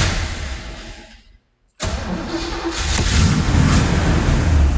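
1966 Chevrolet Corvette V8 on a cold start: the engine sound fades away, breaks off completely for a moment, then comes back suddenly and builds as the engine catches and runs.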